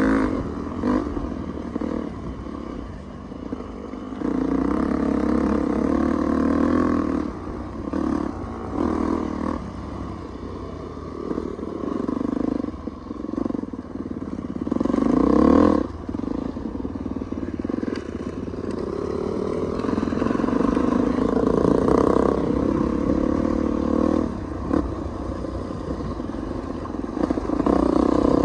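Dirt bike engines running on a trail ride, the throttle repeatedly opened and eased off so the engine note rises and falls in surges, loudest about halfway through.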